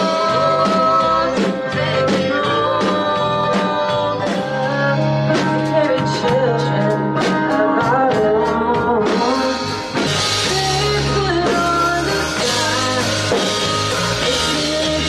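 A live rock band playing a song, with a singer, guitar and a drum kit keeping a steady beat. The cymbals come in louder about ten seconds in.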